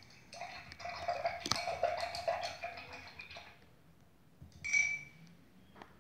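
Small hard objects clinking and tapping: a run of light rattling taps in the first half, then a single short ringing clink near the end.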